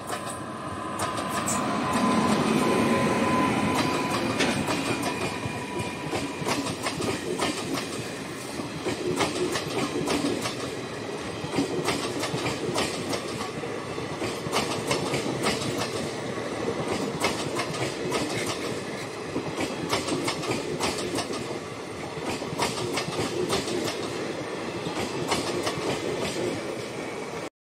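Indian Railways electric locomotive and its passenger coaches passing close by. The sound is loudest as the locomotive goes past about two to four seconds in, then turns into a long run of repeated wheel clicks as the coaches roll over the rail joints.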